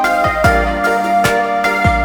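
Background music: a soft keyboard melody with held notes over a steady low beat.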